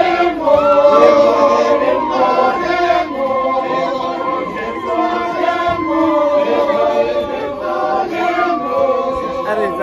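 A group of people singing together in chorus.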